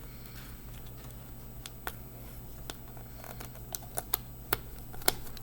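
Light, sharp clicks and taps of a small screwdriver and tiny screws during laptop disassembly, irregular and mostly in the second half, over a low steady hum.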